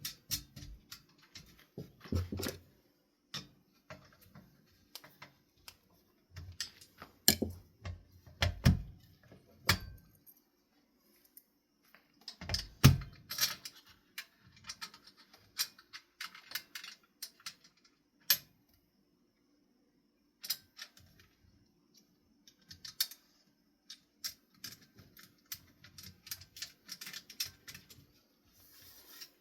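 Irregular clicks, clinks and knocks of small metal parts and screws being handled while the ceiling fan's motor housing screws are driven in, over a faint steady hum.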